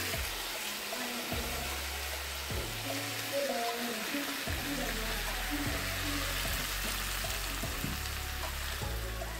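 Chicken and bell peppers sizzling in a hot frying pan while a spatula pushes them out, over background music with steady low notes and a simple melody.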